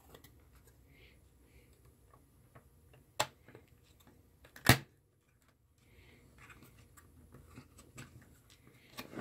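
Clear laser-cut acrylic case panels of a clock kit being pressed together by hand: faint plastic taps and rubbing, with two sharp plastic clicks about three and about four and a half seconds in, the second the loudest. The snap-together acrylic parts keep popping apart.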